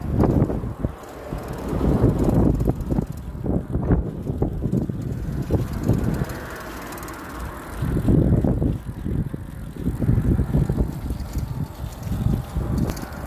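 Wind buffeting the microphone of a moving bicycle in uneven gusts, with short knocks from the ride running through it.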